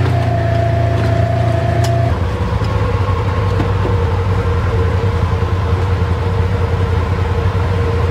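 Polaris RZR Trail S 1000's twin-cylinder engine running steadily, heard from inside the open cab; its note drops to a lower steady pitch about two seconds in.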